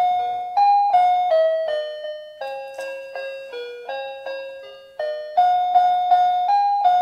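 An electronic piggy bank's built-in speaker plays a loud jingle of single electronic notes, one after another. This is the tune the bank plays when it has taken in a banknote through its slot.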